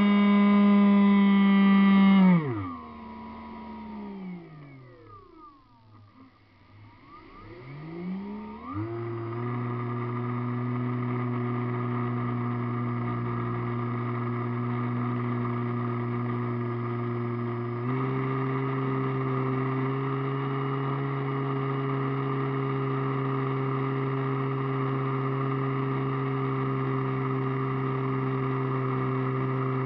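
Radio-controlled airplane's motor and propeller heard from on board: a loud steady hum that falls away in pitch about two seconds in as the throttle is cut, winds down almost to silence, then spools back up. It then runs steadily, stepping up slightly in pitch about eighteen seconds in.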